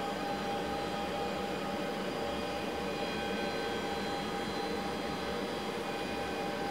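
Kellenberger 600U cylindrical grinder running steadily: an even mechanical hum with several steady whine tones from its wheel spindle and hydraulics. The hydraulic table is being cycled to work the air out of the hydraulic system.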